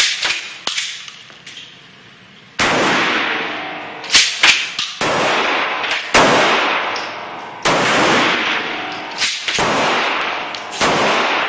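Gunshots from a Mossberg 500 pump-action shotgun and other guns at the range, about ten shots at uneven intervals. Each ends in a long echoing tail from the enclosed indoor range.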